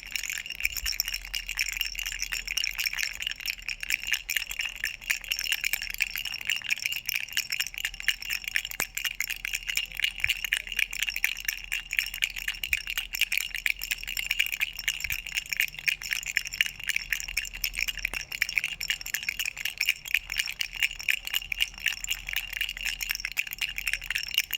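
A duck-shaped toy baby rattle shaken without pause, giving a rapid, bright, ringing jingle.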